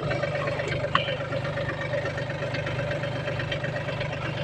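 Excavator's diesel engine running steadily, with a sharp knock about a second in.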